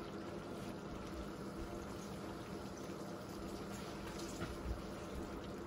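Chicken liver adobo simmering in a frying pan: a steady, quiet bubbling hiss with a few faint pops.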